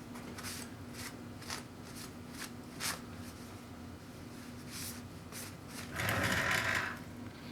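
Scattered small clicks and rustles of parts being handled, with a louder scraping rub about six seconds in, over a steady low hum.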